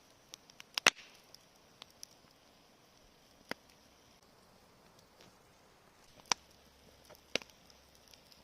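Campfire crackling: irregular sharp pops of burning wood, the loudest about a second in, with a few more scattered through, over a faint steady hiss.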